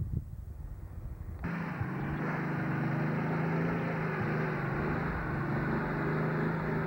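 Old Jeep's engine running steadily under load as it climbs a muddy trail, starting abruptly about a second and a half in; before that, only a low wind rumble on the microphone.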